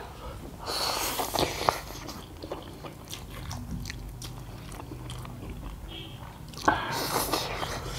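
Two people slurping and chewing spicy instant noodles, close to the microphone. There are two louder, hissing slurps, one about a second in and one near the end, with softer wet chewing between them.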